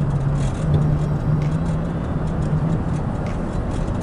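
Steady road and engine noise inside the cab of a moving truck, with a low engine drone that drops away about three seconds in.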